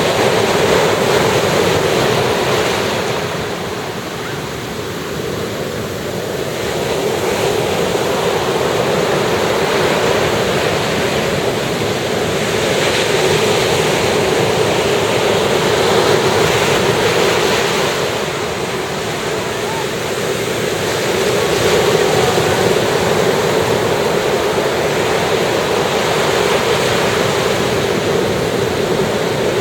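Sea waves washing onto a beach, a continuous wash that swells and eases slowly every several seconds, with some wind on the microphone.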